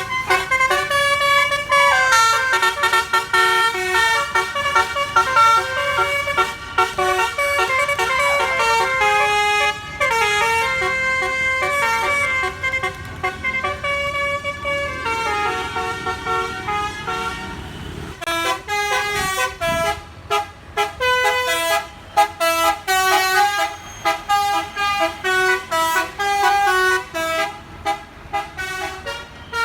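Bus telolet basuri multi-tone air horn playing a stepped melody, several pitches sounding together. A few seconds past the middle the tune gives way to a rising rush of engine and road noise, then resumes in short, choppy notes.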